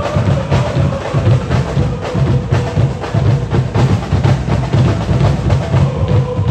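Football ultras crowd chanting in unison, a long held note, over a steady beat of bass drums.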